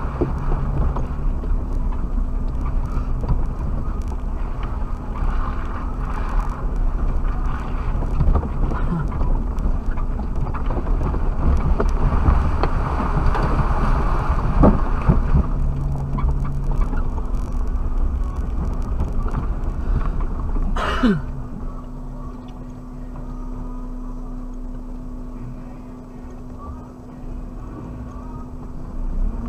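Suzuki Jimny driving off-road, heard from the dashcam: a loud, steady rumble of engine and tyres over rough ground. About two-thirds of the way through, a sharp falling sweep sounds once, and the rumble drops to a quieter, steady low hum.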